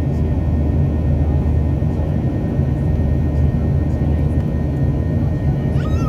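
Airliner cabin noise: the steady low drone of the engines and airflow heard from inside the passenger cabin. There is a brief high squeak just before the end.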